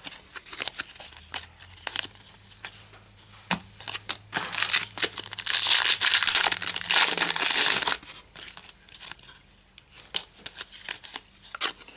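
A foil trading-card pack wrapper being crinkled and torn open, loudest for a few seconds in the middle, with scattered light clicks and taps around it.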